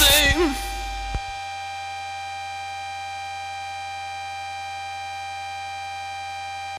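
End of a darkwave electronic track: the full music stops, a few warbling synth notes and a click trail off in the first second, then a single held synthesizer drone sustains unchanged and cuts off abruptly at the end.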